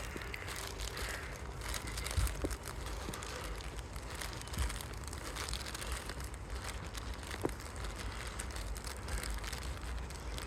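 Footsteps of a person walking up a rough, uneven footpath, with scattered small crackles and a constant low rumble.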